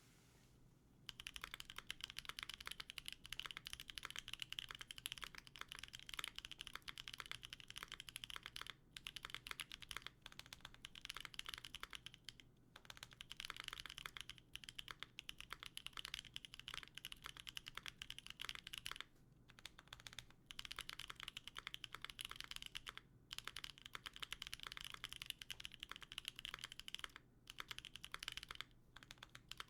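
Continuous fast typing on a Mercury65 mechanical keyboard with lubed Boba U4T tactile switches, GMK Botanical keycaps and GMK screw-in stabilizers. The typing starts about a second in and stops briefly a few times.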